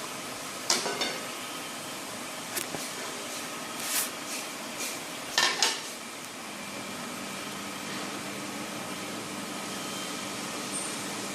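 Kitchenware clattering: metal utensils knocking against dishes, with about six separate sharp clinks and knocks in the first half, two of them in quick succession, over a steady background hiss.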